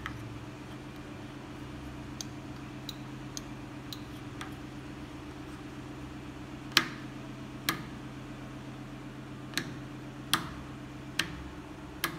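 Illuminated rocker switches on a chick brooder's control panel clicking as they are pressed: a few faint clicks in the first half, then six sharp ones, over a steady low electrical hum from the unit.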